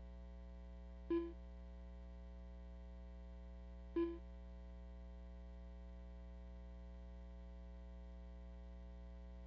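Two short electronic beeps about three seconds apart over a steady electrical hum.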